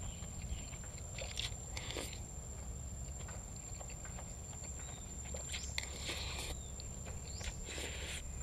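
Chewing while eating khanom jeen rice noodles with raw vegetables, heard as short bursts about a second and a half in, around six seconds and around eight seconds, over a steady low hum.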